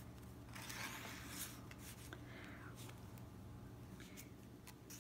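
Faint rustling and sliding of paper as a postcard copy is handled and laid on the pages of a handmade paper journal, with a couple of light taps near the end, over a low steady hum.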